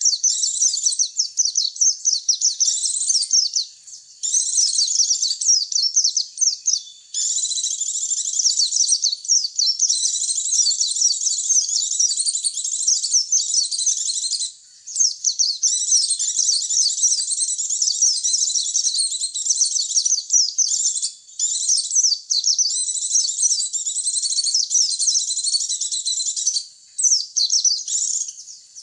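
White-eye (pleci) song used as a lure call: rapid, high twittering chirps run together in long dense phrases, broken every few seconds by short pauses.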